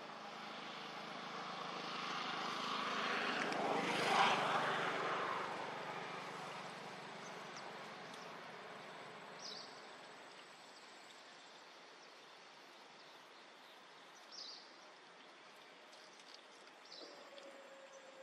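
A distant engine passing by, swelling to its loudest about four seconds in and then fading away.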